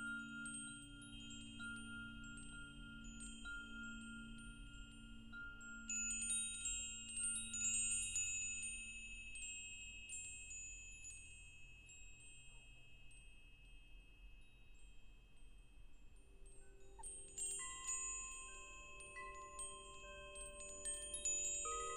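Wind chimes ringing as they are struck at irregular moments, each note hanging on and overlapping the next. A flurry of strikes comes about six seconds in and another from about seventeen seconds, with fewer, fading tones between.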